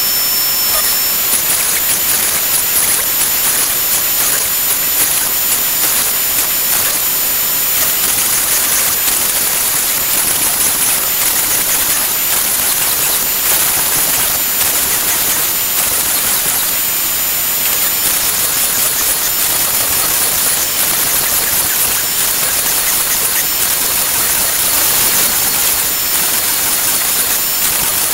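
Shapeoko XXL CNC router cutting Baltic birch plywood: the palm-router spindle's steady high-pitched whine over the rushing noise of the dust-collection suction, running evenly as the bit moves through the pattern.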